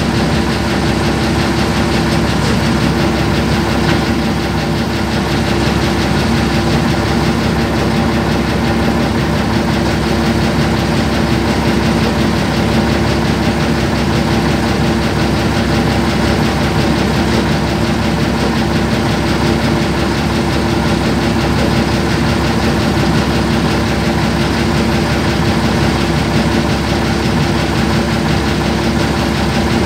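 Heavy machine engine idling steadily, heard from inside the operator's cab, with a constant hum and no pile-hammer strikes.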